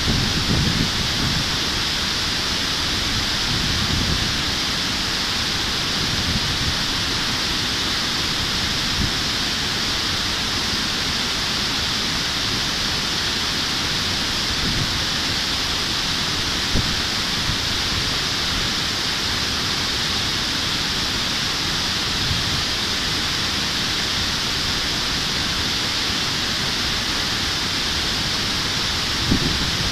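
Steady rush of a mountain stream pouring over a low concrete weir: an even, unbroken wash of water noise.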